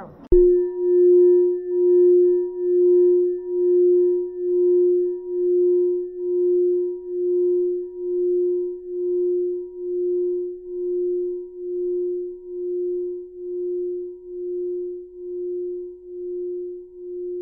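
A singing bowl struck once and left ringing: one steady low tone that swells and dips about once a second and slowly fades, its fainter higher overtones dying away first.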